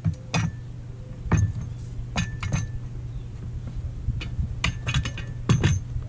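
Steel pallet breaker prying a wooden pallet's deck board loose: a series of sharp, irregularly spaced metallic clinks and knocks as the tool's head strikes the wood and nails. A steady low hum runs underneath.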